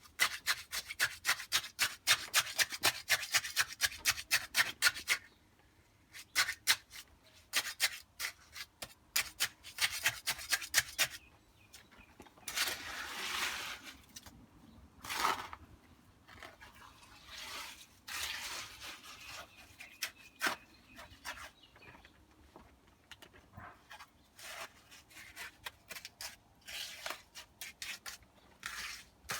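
Hand tool scraping and working wet concrete mix. It starts with a fast run of rasping strokes for about five seconds, then goes on in scattered strokes and a few longer scrapes.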